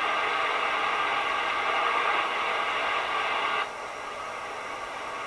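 Static hiss from a Browning Golden Eagle Mark III CB base station's speaker. It is steady at first, then drops suddenly to a fainter hiss a little past halfway.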